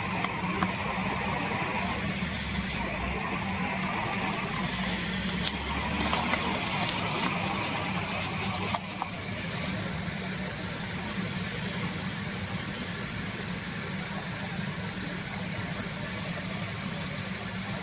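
Car engine idling with a steady low hum, heard from inside the car, with a few sharp clicks. A high steady buzz comes in about ten seconds in and fades near the end.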